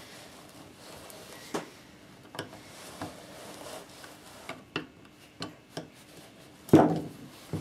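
A cloth rag wiping over the housing of an old Makita belt sander: quiet rubbing and scuffing with scattered light clicks and taps, and one short, louder sound near the end.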